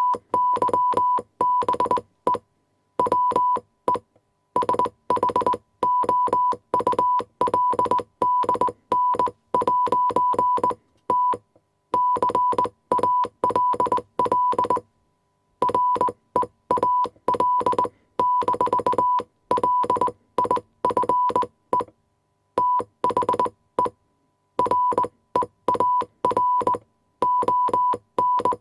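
Morse code sent on a telegraph key: a 1 kHz tone keyed on and off in dots and dashes, with the key's mechanical clicking under each mark. Letters are separated by short pauses, and words by pauses of about a second.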